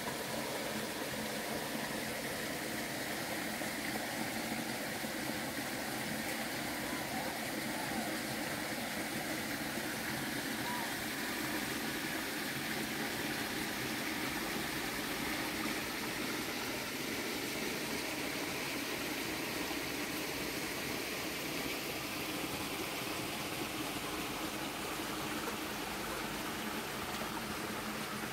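Steady rushing of a shallow stream, an even wash of water noise that holds the same level throughout.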